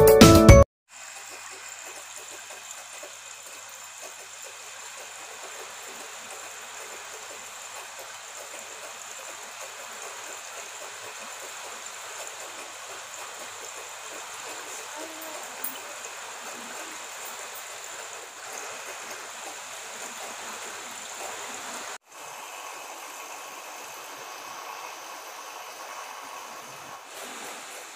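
Water running steadily down a homemade tabletop waterfall fountain, an even splashing trickle. It cuts out for an instant about 22 seconds in and resumes.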